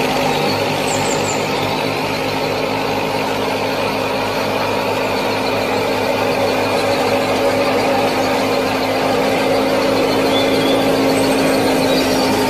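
A motor running steadily with an even hum that holds one pitch throughout.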